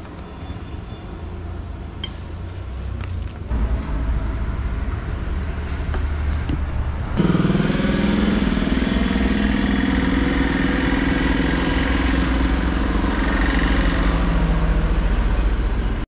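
A vehicle on the move: a steady low engine and road rumble that slowly grows louder. About seven seconds in it jumps suddenly to a louder, fuller running noise with a hum of engine tones.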